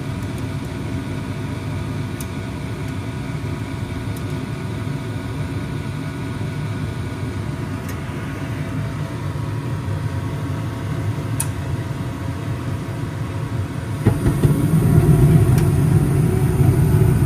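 Carrier gas furnace running again after its tripped high-limit switch was reset: a steady machine hum with faint whining tones above it. About fourteen seconds in it steps up, getting louder with more low rumble as the next stage of the heating sequence comes on.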